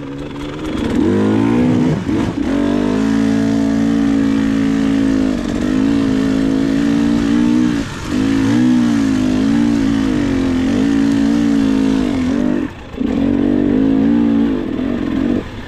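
Dirt bike engine working under load, the throttle opening and easing off again and again, with the pitch climbing and falling. The engine note drops away briefly about two, eight and thirteen seconds in.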